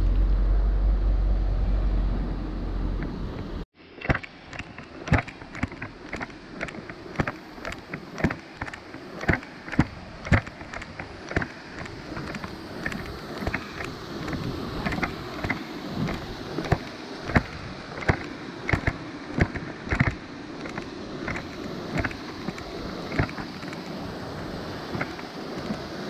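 Wind buffeting the microphone for the first few seconds, then after a cut, walking footsteps on a paved road, about two steps a second, over a steady rush of creek water.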